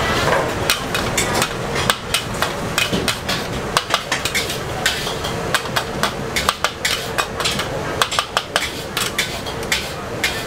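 Metal wok spatula repeatedly clanking and scraping against a wok as noodles are stir-fried, in quick irregular strikes over a steady hiss of frying.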